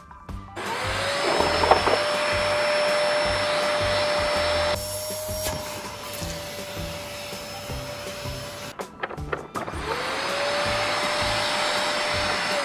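Vacuum cleaner switched on, spinning up to a steady whine with a rushing hiss as its hose and wand clean a car's floor carpet. Its hiss dulls about five seconds in, it cuts off near nine seconds, and it spins up again about a second later.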